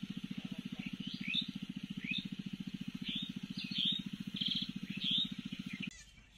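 Small birds chirping, with short rising calls and a brief trill, over a steady low, fast throbbing that stops abruptly about six seconds in.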